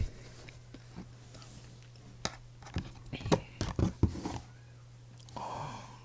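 Quiet eating sounds: scattered sharp clicks and taps over a low steady hum, bunched together in the middle, with a short soft rustle near the end.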